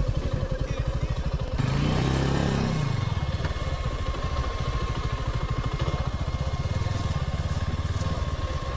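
Motorcycle engine running at low speed as the bike rolls slowly over a dirt track, with the revs rising and falling once about two seconds in.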